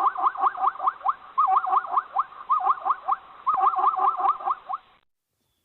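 An animal calling in rapid bouts of short, repeated squeaky notes, about five a second, each note bending in pitch; the calling stops about five seconds in.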